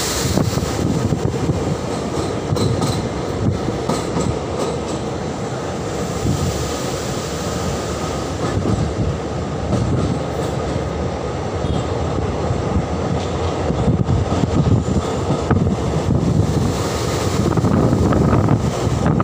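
Train running across a steel truss bridge, heard from a carriage window: a steady rumble of wheels on rails with scattered clicks, growing a little louder near the end.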